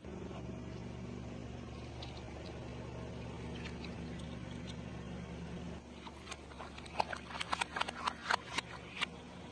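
A steady low hum for about the first six seconds, then a run of sharp, irregular crunches and clicks from chewing crispy fried food.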